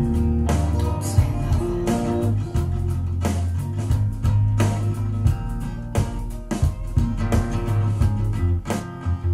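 Pop-rock song playing, with guitar and a strong bass line over a steady drum beat.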